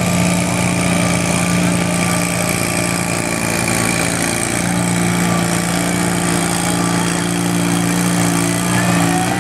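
Garden tractor engine running steadily under load as it drags a weight-transfer pulling sled down the dirt track.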